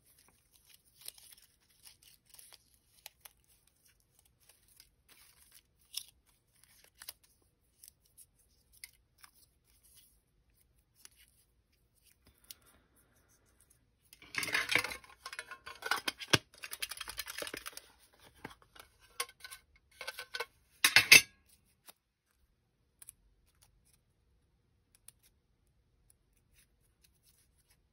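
Hands handling paper and cellophane at a craft table: faint scattered clicks and rustles, then a few seconds of busy rustling and rummaging about halfway through, and a short loud burst of rustling about seven seconds later.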